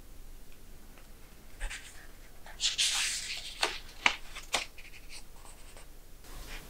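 Paper rustling as the pages of a paperback book are handled and turned, with a swish about three seconds in followed by three crisp paper snaps.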